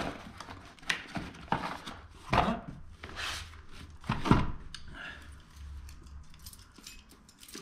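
Small cardboard boxes being handled and set down in a foam-lined carton: scraping and rustling of cardboard, with two dull knocks about two and a half and four and a half seconds in.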